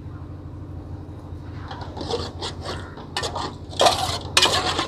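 A metal ladle stirring and scraping through raw prawns and masala in a large metal pot, in irregular rubbing, scraping strokes that start about a second and a half in and are loudest near the end, over a steady low hum.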